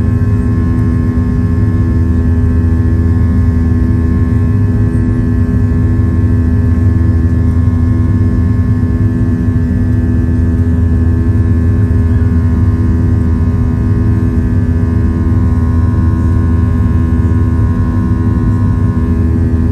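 Steady cabin drone of a Boeing 737-700 with its CFM56-7B jet engines running, several steady engine tones above it and a slow throb about once a second.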